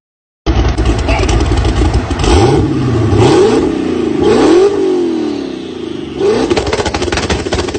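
Twin-turbocharged engine of a white BMW, turbos through the hood, cutting in about half a second in and revved several times, its pitch climbing and falling, then settling into a rough, rapidly crackling idle near the end.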